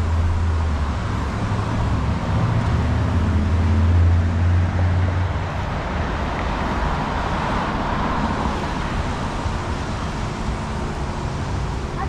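City street traffic: a nearby vehicle's engine hums low and steady for about the first five seconds, then fades, leaving the rushing noise of passing traffic.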